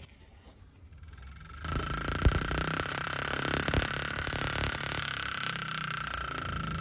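The spark plug out of a 1923 Fairbanks Morse hit-and-miss engine, held against the engine and sparking in a continuous stream as the ignition buzzes with a steady high note. It is a test that the regapped plug still fires. The buzz starts suddenly about a second and a half in, and there is a single click partway through.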